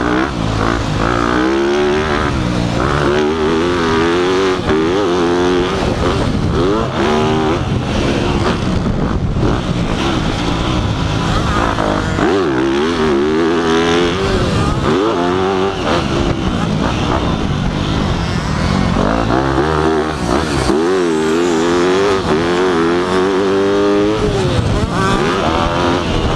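Yamaha motocross bike engine heard from on board, revving up and falling off again and again as the throttle is worked, over steady wind noise.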